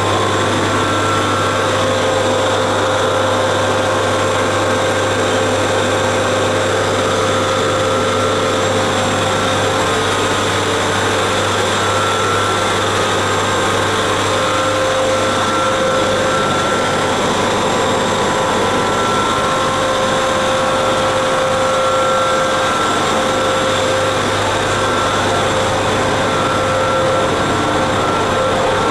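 Machinery in the machine room of a series 461 electric locomotive running: a loud, steady low hum with several steady whines and a whirring hiss above it, unchanging throughout.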